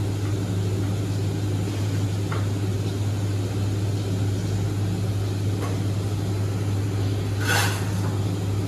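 Steady low mechanical hum, with a few faint clicks and a short clatter near the end.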